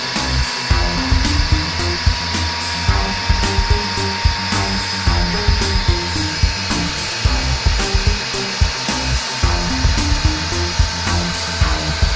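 Background music with a steady beat over the steady whine of a mixer grinder's motor running.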